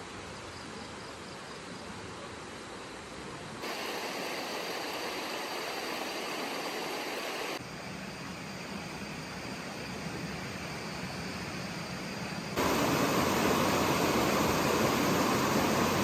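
Flowing river water: a steady rush that steps abruptly louder or quieter about every four seconds, loudest near the end where a shallow stream runs over rocky rapids.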